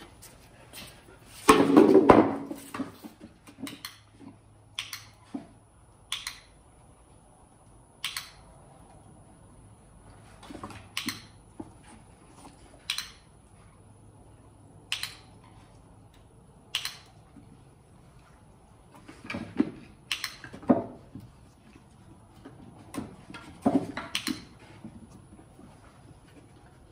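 Plywood box set down on a concrete floor with a clatter about two seconds in. After it come single sharp ticks, roughly every two seconds, and later a few quicker runs of taps as a dog steps in and out of the box.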